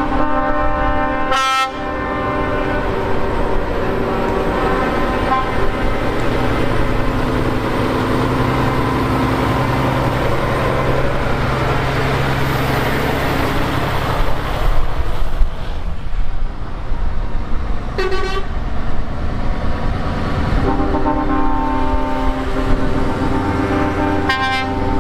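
Passing trucks sounding multi-tone air horns over diesel engine noise: long held horn chords near the start and again over the last few seconds, with short sharp toots about a second and a half in, about 18 seconds in, and near the end.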